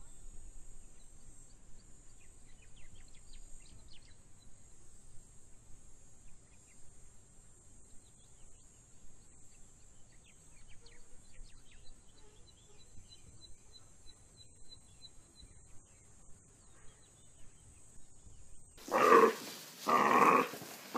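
Faint, high twittering chirps of an African wild dog pack over a steady high hiss. Near the end, four loud cries about a second apart.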